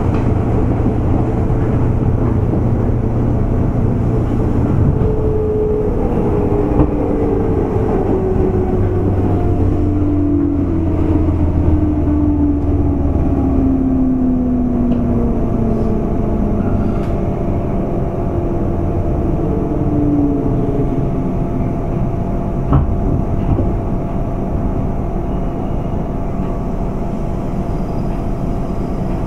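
Running sound of a 201 series electric train's motor car with thyristor chopper control, heard on board: a steady rumble with motor whines that fall in pitch over about fifteen seconds as the train slows.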